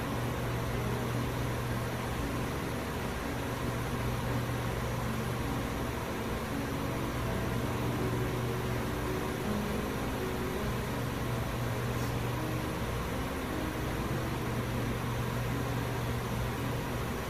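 Steady low machine hum over an even hiss, unbroken throughout, from running shop machinery.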